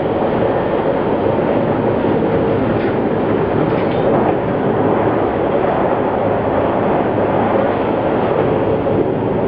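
Singapore MRT train running between stations, heard from inside the passenger car: a steady, unbroken running noise of the moving train.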